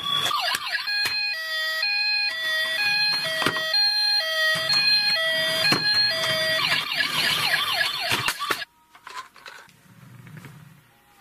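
Toy police car's electronic siren sound effect. It starts with quick warbling sweeps, switches to a steady alternating two-note hi-lo tone, then goes back to fast sweeps and cuts off abruptly about three-quarters of the way through. A few faint clicks follow.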